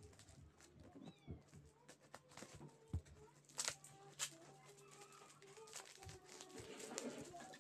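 Plastic snack packaging crinkling and crackling in the hands, in irregular rustles with a few sharper crackles around three to four seconds in. Faint animal calls are heard underneath.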